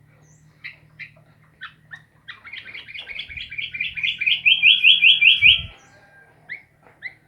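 Sooty-headed bulbul (kutilang) calling: a few separate chirps, then a fast run of repeated notes lasting about three seconds that grows louder and stops abruptly, followed by two more single chirps near the end.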